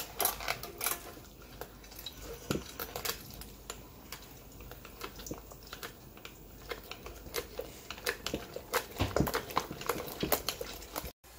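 OXO Good Grips stainless-steel food mill being hand-cranked, its blade scraping over the perforated disc with irregular metallic clicks and knocks as strawberries are pressed through.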